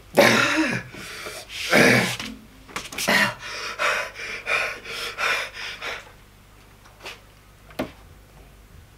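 A man gasping and breathing hard through his mouth from the burn of a ghost pepper he has just eaten. Three loud sharp breaths come first, then a run of quicker, panting breaths about three a second that die away about two-thirds of the way through.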